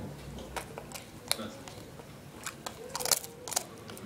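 Boxer dog crunching a biscuit: a series of sharp, irregular crunches, thickest about three seconds in.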